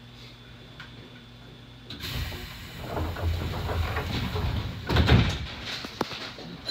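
Sliding passenger doors of a stopped Nankai 1000 series electric train working: a rush of air and rumble starts about two seconds in, peaks in a heavy thud about five seconds in, then a sharp click.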